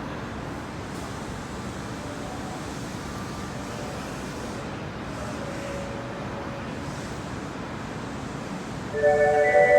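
Steady rumbling hiss of a subway station platform after a train has gone. Near the end an electronic platform chime melody starts up loudly.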